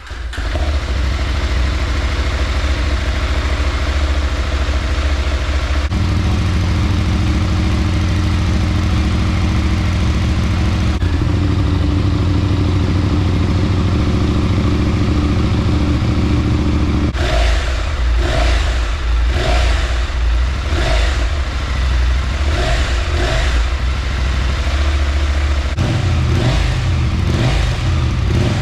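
Husqvarna Norden 901 parallel-twin engine running through its exhaust: a steady run that steps up in revs about six and about eleven seconds in, then quick repeated throttle blips from about seventeen seconds, settling to a steadier run near the end.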